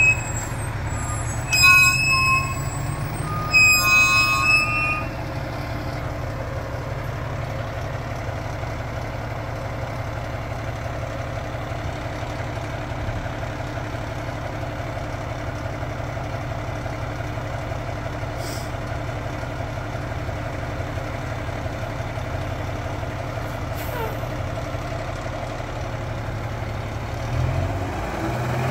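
Fire engine's diesel engine running steadily at low speed as the truck rolls out of the station, getting louder near the end. Two short high-pitched tones sound a couple of seconds apart near the start.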